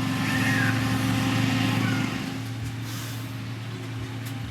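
Diesel engine of a heavy road-construction machine (motor grader or road roller) running steadily. It is louder for the first two seconds, then settles lower.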